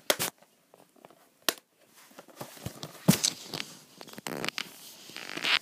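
Handling noise: a few sharp clicks and knocks from a plastic DVD case being handled on a tile floor, with clothing rustling as the camera is moved.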